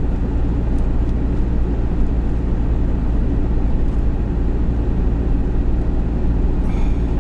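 Steady engine drone and tyre rumble heard inside the cab of an Iveco Daily truck cruising on a highway.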